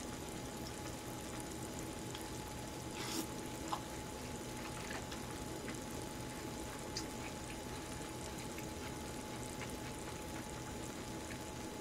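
Sukiyaki broth simmering in a pan on a portable gas burner: a quiet, steady bubbling hiss, with a brief louder noise about three seconds in and a small click just after.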